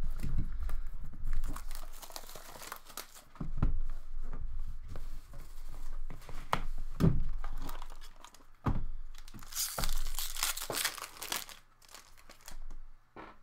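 A sealed hockey card box's wrapping being torn and crinkled as the box is opened, with knocks from the cardboard being handled. The longest, loudest tearing comes about ten seconds in.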